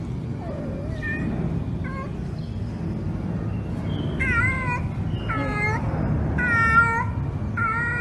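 A cat meowing four times, roughly a second apart, starting about four seconds in, after a couple of faint short calls, over a steady low background rumble.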